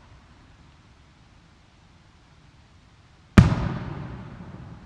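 An aerial firework shell bursting overhead: one sharp, loud boom about three and a half seconds in, followed by a low rumble that fades away.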